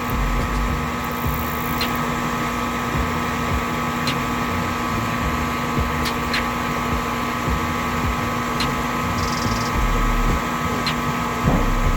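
Goodman gas furnace's draft inducer motor running steadily during the start-up sequence, a constant hum with a steady whine, after the pressure switch has closed and before the burner lights. Faint ticks come about every two seconds.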